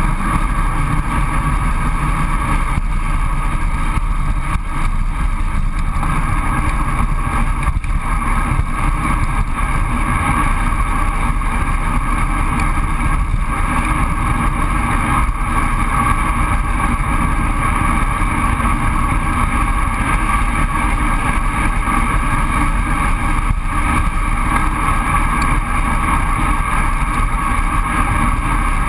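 Wind rushing over a GoPro's microphone on a road bike going downhill at speed, a loud, steady noise with no let-up.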